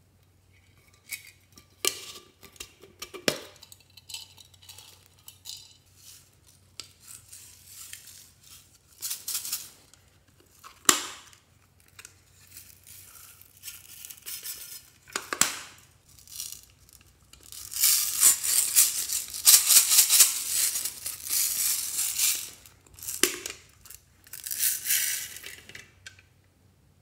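Small plastic containers of slime add-ins handled and opened with scattered clicks and taps, then shaken so that small loose bits such as seed beads and glitter rattle out onto the slime. The longest rattle lasts about five seconds past the middle, with a shorter one near the end.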